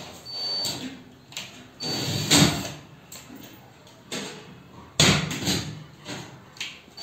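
Short bursts of scraping and knocking from work on PVC ceiling panels, several separate strokes about half a second long. The loudest come about two and a half and five seconds in.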